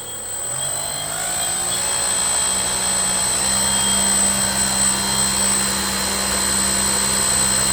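900kv brushless electric motor turning a 3D-printed 11-inch, 5-inch-pitch propeller on a thrust test stand, speeding up over the first couple of seconds toward half throttle, then running steady with a motor whine over the rush of the propeller's air.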